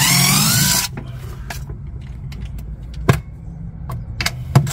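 Cordless Craftsman impact driver running in one burst of just under a second, backing a screw out of a drawer slide, followed by a few sharp clicks and knocks of handling over a low hum.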